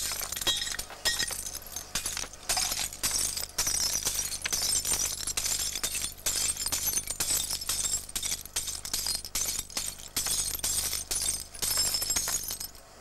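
Glass bottles being smashed in a bin by repeated jabs of a hand-held metal tool: rapid crunching and shattering with clinking shards, stopping shortly before the end.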